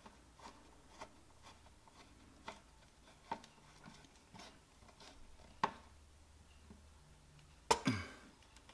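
Faint clicks and taps of stiff ground wires and a screwdriver being worked into a screw-down ground terminal in a metal electrical box, with a louder scrape that falls in pitch near the end.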